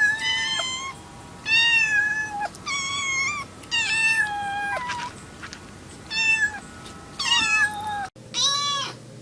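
Domestic cat meowing over and over: about seven drawn-out, high meows, each roughly half a second to a second long and dropping a little in pitch toward its end.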